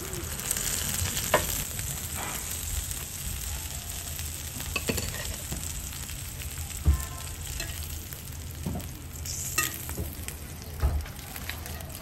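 Oil sizzling steadily on a large flat griddle where egg-filled pancakes are fried, with a few sharp clicks and knocks scattered through, the loudest about seven seconds in.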